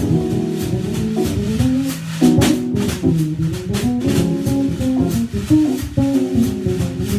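Keyboard, bass guitar and drum kit playing together: held keyboard chords over a bass line, with a steady run of cymbal strokes and one brighter cymbal hit about two and a half seconds in.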